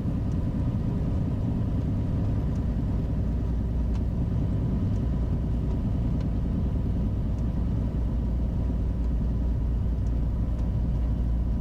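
Steady hum of a Beechcraft Bonanza's piston engine and propeller at low taxi power, heard from inside the cockpit.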